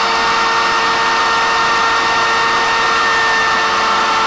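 Router motor on a CNC machine running at full speed, its 4-flute end mill cutting 3/4-inch polycarbonate (Lexan): a steady high-pitched whine over a constant hiss, with no change in pitch or level.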